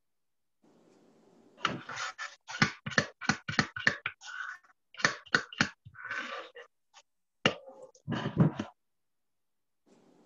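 A run of quick clicks and knocks with a few short scrapes from a quarter-cup measure scooping cake batter and tapping against the bowl and cupcake pan. It starts a second or so in and stops a little before the end.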